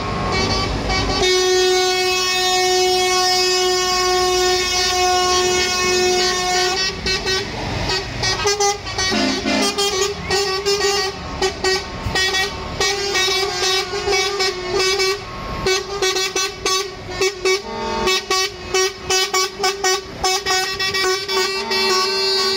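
Trucks in a passing convoy sounding their horns. One long horn blast is held for about six seconds. From about seven seconds in, it gives way to a rapid string of short toots and blasts.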